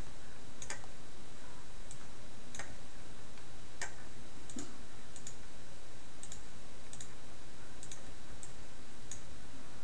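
Computer mouse button clicks, a dozen or so light, irregular clicks, over a steady background hiss.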